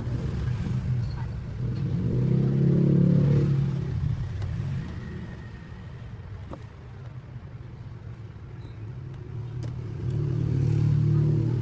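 Low engine rumble of passing motor vehicles, swelling up and fading away twice.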